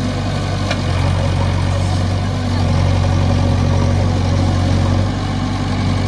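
JCB 3DX Xtra backhoe loader's diesel engine running with a steady low hum while the front loader bucket works through the mud. The engine note dips briefly just after the start and again about five seconds in.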